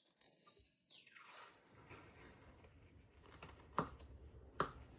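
Faint scratching of lock-picking tools in a Mul-T-Lock Garrison padlock's keyway, then two sharp clicks less than a second apart near the end.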